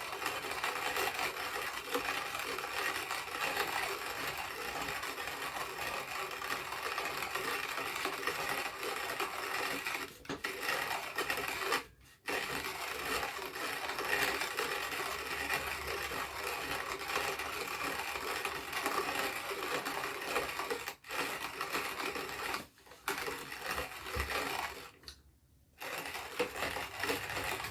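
Hand-cranked wooden coffee grinder grinding coffee beans: a continuous crunching, rattling grind as the handle is turned, stopping briefly several times.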